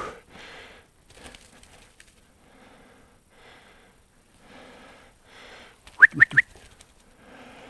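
Heavy, rhythmic breathing of a man on the move, with three quick, sharp whistle notes about six seconds in, calling the bird dog on.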